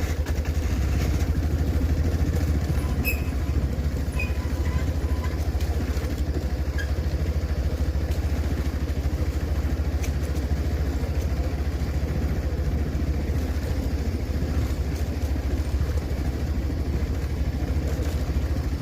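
Safari vehicle's engine running steadily at a low idle, a constant low rumble.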